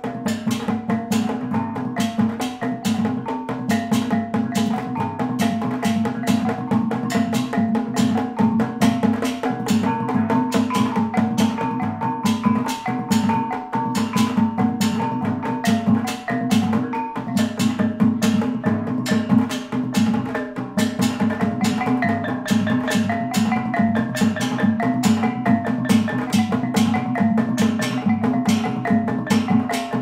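Kulintang gong music: a row of eight tuned bronze gong-kettles struck rapidly with wooden beaters plays a shifting melody, over a drum and the steady ring of a hanging bossed gong.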